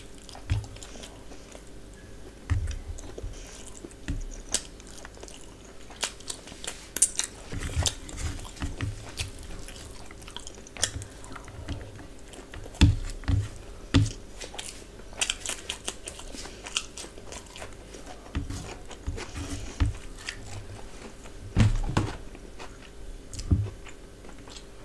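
Close-miked chewing and wet lip-smacking of biryani rice and meat eaten by hand, with irregular sharp mouth clicks. A faint steady hum runs underneath.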